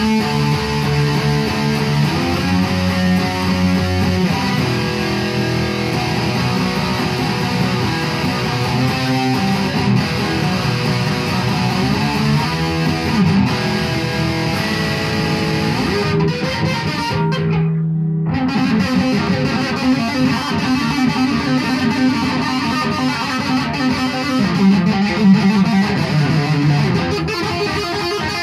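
A rebuilt 1966 Gibson Les Paul Custom electric guitar, its pots and pickups freshly repaired, played through an amplifier in chords and single-note lines. About two-thirds of the way through the treble drops out for a moment and only a low note rings.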